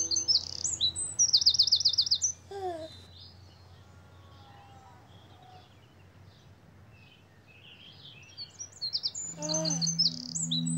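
Birdsong: rapid high chirps and trills, loud for the first two seconds, thinning to faint scattered calls, then loud again near the end. Soft sustained musical notes sound at the start and return near the end.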